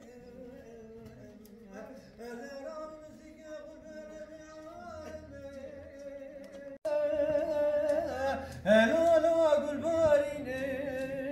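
A dengbêj, a Kurdish traditional storytelling singer, sings unaccompanied in a man's voice with long, wavering held notes. About seven seconds in, the voice suddenly becomes much louder.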